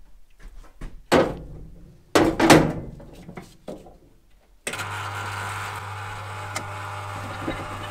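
A heavy cast-iron brake caliper and its carrier set down in a parts washer's tray with a few loud knocks. About two thirds of the way in, the parts washer's electric pump switches on suddenly and runs with a steady hum while cleaning fluid flows from its hose.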